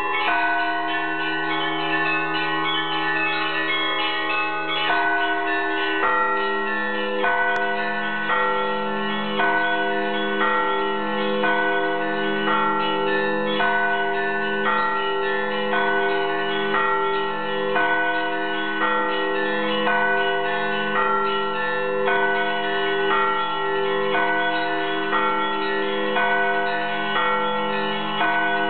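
Russian Orthodox church bells rung from ropes on their clappers in a continuous, rhythmic peal, small bells chiming in a repeating pattern over steadily sounding lower bells. A deeper bell joins about six seconds in.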